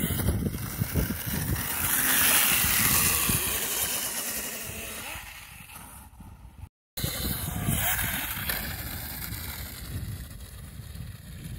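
Wind buffeting the microphone over the faint running whine of a Husqvarna EE5 electric kids' motocross bike on a dirt track. The sound is louder in the first half, fades later, and drops out for an instant about seven seconds in.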